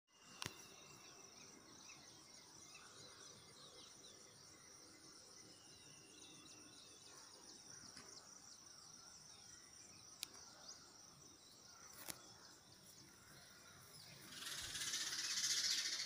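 Faint rural outdoor ambience: distant birds chirping over a steady high hiss, with a few sharp clicks. About a second and a half before the end, a loud rush of noise comes in and drowns it.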